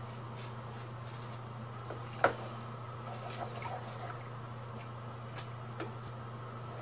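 A ladle stirring beef broth in a cooking pot, with one sharp knock against the pot about two seconds in and a few lighter knocks and scrapes after it, over a steady low hum.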